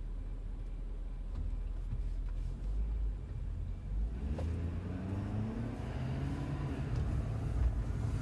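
Ford F-350 pickup's engine and road noise heard inside the cab: a steady low rumble, then about halfway through the engine note rises as the truck accelerates.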